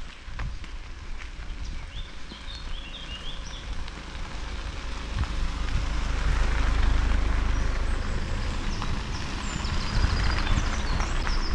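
Two cars driving slowly past one after the other on a dirt forest track: tyre noise on the loose surface with engine rumble, swelling about six seconds in and again near the end. Birds chirp in short bursts early on and near the end.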